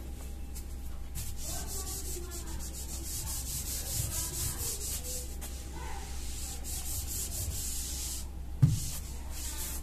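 Whiteboard eraser wiping marker off a whiteboard in many quick back-and-forth strokes, a dry scrubbing hiss. A single thump about three-quarters of a second before the end, louder than the wiping.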